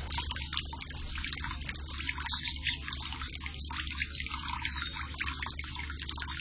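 Water from a small solar fountain splashing and trickling into a bird bath basin, a steady, flickering patter.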